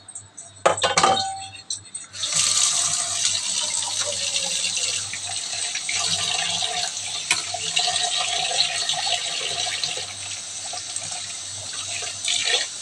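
Two or three metal clinks about a second in, then a kitchen tap running steadily from about two seconds in.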